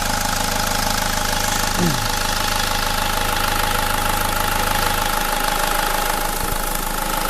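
SsangYong Kyron's turbocharged engine running under the bonnet with a steady high whistle over it. The owner cannot say what causes it but suspects an air or vacuum leak.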